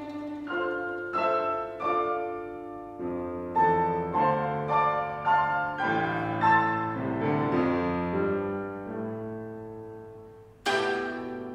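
Solo piano plays a slow passage of melody notes and chords, each left ringing, fading quieter toward the end. About ten and a half seconds in, the guzheng comes back in with a sharp, bright plucked stroke.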